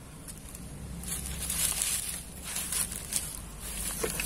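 Dry leaves and grass rustling and crunching, with a few brief crackles.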